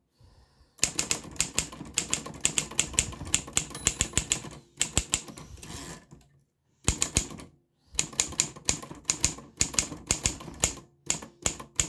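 A 1941 Corona Silent portable manual typewriter being typed on: runs of quick key strikes with short pauses, and a longer pause near the middle.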